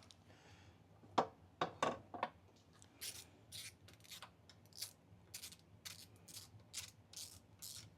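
A few sharp metallic clicks, then a ratchet wrench worked back and forth on a fork clamp bolt, rasping in short quick strokes about three a second.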